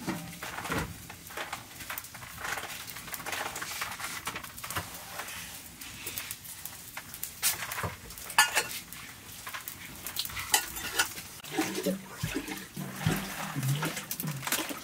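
Metal pots, vessels and utensils clinking and clattering on and off, in scattered sharp knocks.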